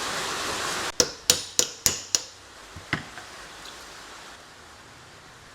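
Five quick, sharp metallic strikes about a third of a second apart, each with a short bright ring, then two lighter knocks: metal tapping on metal. A steady hiss runs underneath before the strikes and cuts off suddenly about a second in.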